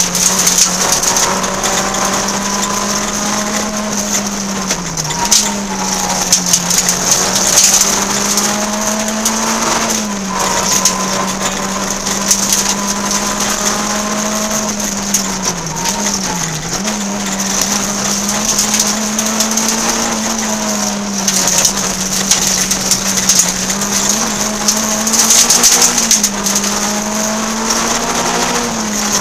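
Peugeot 106 N2 rally car's four-cylinder engine running hard at high revs, heard from inside the cabin, its pitch dipping briefly several times. Loud hiss and crackling road noise run over it.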